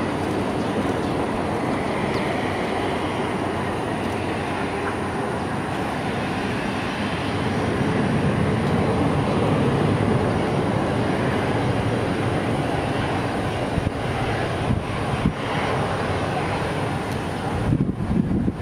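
Boeing 787 Dreamliner's Rolls-Royce Trent 1000 jet engines roaring as the airliner rolls out after touchdown, a broad steady roar that swells about seven seconds in and then eases.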